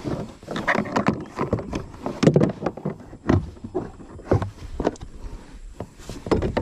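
Irregular knocks and clunks of hard plastic against a hollow plastic kayak hull as the pedal drive unit is handled and set into its well.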